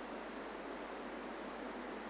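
Steady faint hiss of the recording's background noise, with no other sound.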